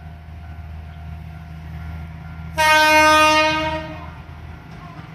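Horn of a KiHa 11 diesel railcar sounding one blast of just over a second, about halfway through, as the train departs. A steady low diesel engine rumble runs under it.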